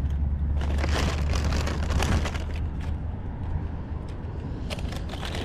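A plastic bag being handled, rustling and crinkling close by in quick crackles that are densest in the first two seconds and pick up again near the end, over a steady low rumble.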